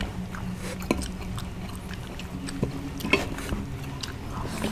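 Quiet eating at a table: a few light clicks and taps of plates and cups as food is picked up by hand, over a steady low hum.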